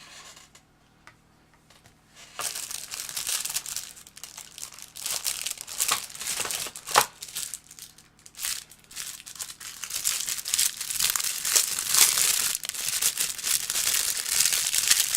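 Packaging from a graphics tablet box being handled and unwrapped: crinkling and rustling with sharp crackles, starting about two seconds in and going on busily.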